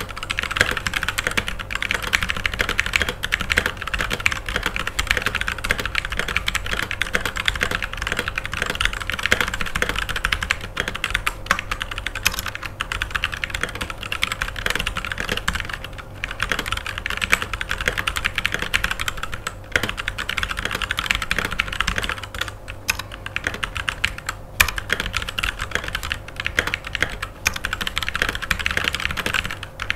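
Continuous fast typing on a Rexus Daxa M84 Ultimate 75% mechanical keyboard: a dense stream of key clicks, broken by a few brief pauses.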